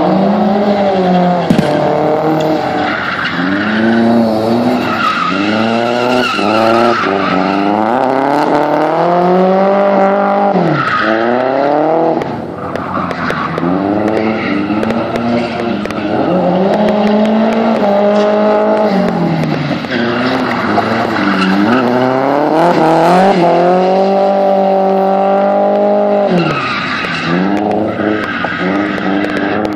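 A drifting car: its engine revs up and down over and over as the throttle is worked, with the tyres squealing and skidding.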